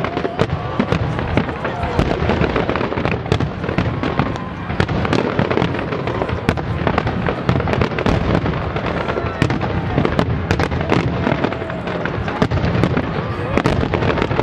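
Aerial fireworks finale barrage: many shells bursting in rapid succession, the bangs overlapping into a continuous volley with crackle and no pause.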